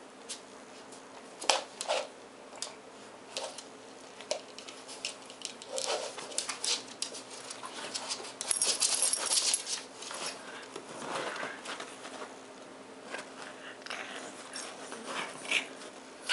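Two Japanese Chins play-wrestling on a dog bed and blanket: rustling fabric and scrabbling paws in irregular short bursts, with a longer, louder stretch of rustling about halfway through.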